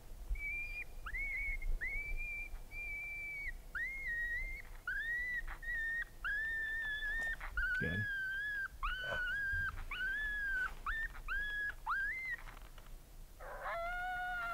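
Coyote pup distress yelps played from a FoxPro X24 electronic caller: short high whistling yelps, about one a second, each sliding up and dropping off at the end. About a second before the end a howl starts, its pitch falling.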